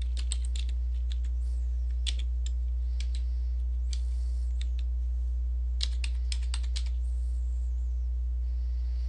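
Computer keyboard keystrokes, typed in a few short bursts with a quicker run about six seconds in, over a steady low electrical hum.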